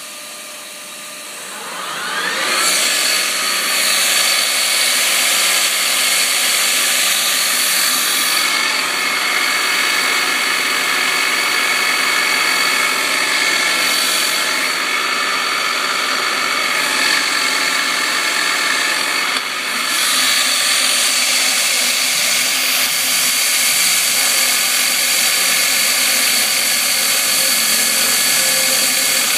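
A Precision Matthews 45 CNC mill's spindle spins up with a rising whine, then runs steadily as a 7/16-inch carbide roughing end mill cuts unhardened 1045 plate steel in circular passes, roughing out a bored hole.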